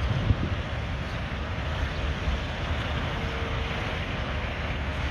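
Wind buffeting the phone's microphone: a steady rushing noise with a rumbling low end.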